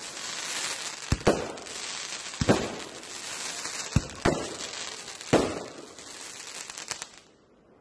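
Fireworks display: a steady crackle of bursting effects with sharp shell bangs about once a second, some in quick pairs. It dies away near the end. Recorded on a phone microphone.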